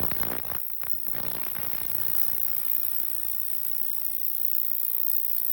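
Ultrasonic cleaner running with a carburetor in its bath, giving a steady buzzing hiss, with a few clicks in the first second.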